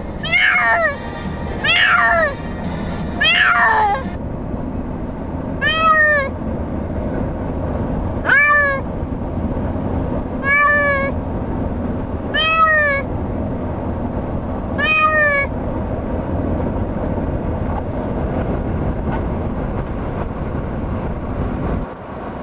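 Domestic cat shut in a pet carrier, meowing to be let out. There are about eight meows: three quick ones, then five longer ones about every two seconds, and they stop about two-thirds of the way through.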